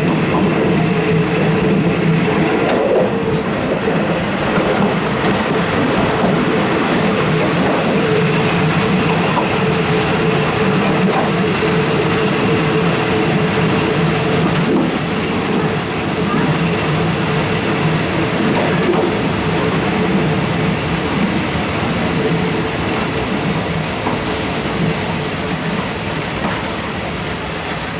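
Diesel-hauled passenger train moving on the rails, its locomotive engine droning steadily over wheel and rail rumble. It eases off slightly near the end, where a faint high whine comes in.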